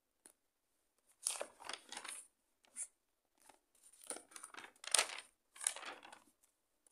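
Paper pages of a notebook being turned by hand, rustling and crinkling in a series of bursts, loudest about a second in and again near five seconds.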